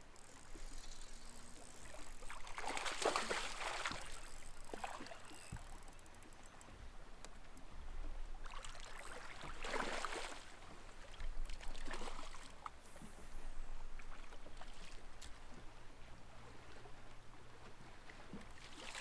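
Water splashing in several bursts as a hooked smallmouth bass thrashes at the surface beside the boat, the biggest about three seconds and about ten seconds in.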